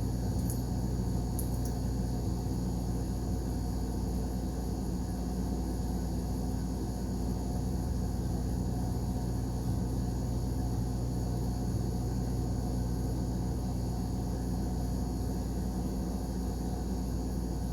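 Steady low mechanical hum from a running machine, holding several fixed tones and never changing level, with two faint high ticks in the first couple of seconds.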